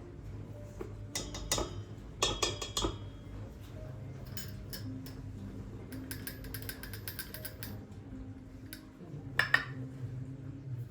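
Dishes and cutlery being handled: scattered clinks and knocks, a quick run of light clinks in the middle and one sharp clink near the end.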